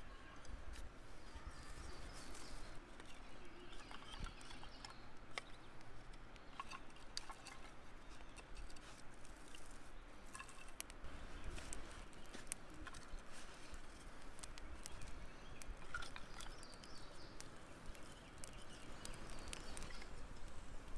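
Faint crackling and popping of a small wood fire catching in bark tinder and kindling inside a log-cabin stack of split wood, with a few louder knocks of sticks being laid on the stack.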